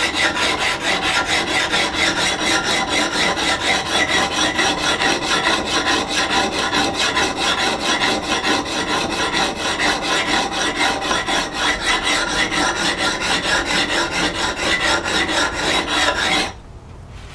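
Coarse diamond sharpening plate, wetted with water, scraped in rapid back-and-forth strokes along the steel bevel of a hewing hatchet, grinding the bevel flat. The gritty rasping stops abruptly near the end.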